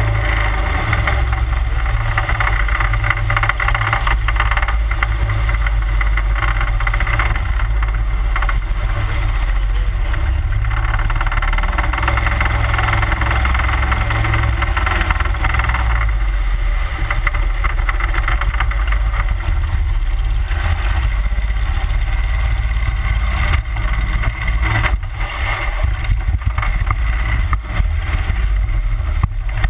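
31 hp Mudbuddy Hyperdrive mud motor running steadily, pushing a boat along at cruising speed. The level dips briefly a few times near the end.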